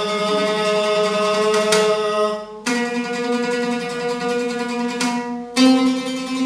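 Oud playing held notes that step upward in pitch, three notes in turn. The note changes about two and a half seconds in and again near the end. It is a scale of reference notes for vocal range practice.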